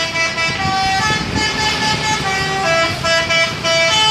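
Indonesian telolet musical bus horn playing a tune of quickly changing notes.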